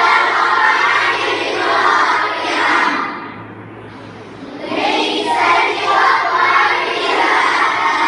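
A group of girls reciting the Quran together in unison, in a chanted melody: one long phrase ending about three seconds in, a pause of about a second and a half, then a second long phrase.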